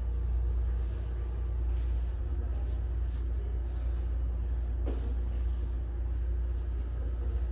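Steady low rumble of background room noise, with a faint steady hum above it.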